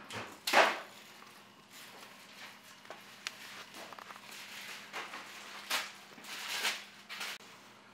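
Workshop handling noises: scattered clicks, knocks and rustles as engine parts and tools are picked up and moved, the loudest rustle about half a second in. A faint steady hum runs underneath.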